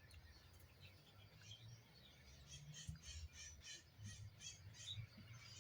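Faint chirping of many small birds: short high calls scattered throughout, over a low rumble.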